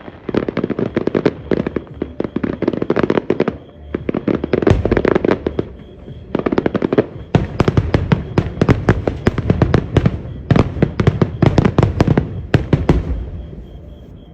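Fireworks finale: rapid volleys of bangs and crackles going off in dense clusters with short lulls between, dying away near the end.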